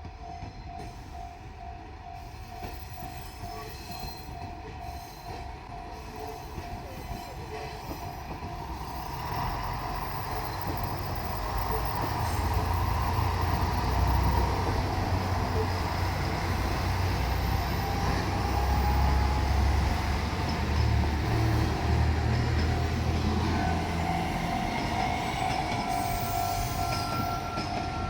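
Level-crossing warning bell ringing in a fast repeating ding while a JR Shikoku diesel multiple unit approaches and passes over the crossing. The diesel engine and wheel-on-rail rumble build up about a third of the way in, stay loud through the middle and then ease off. As the train goes by, the bell can be heard again near the end.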